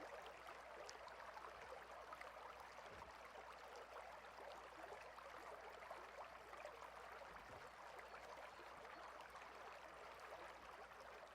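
Faint, steady rush of a mountain stream's flowing water.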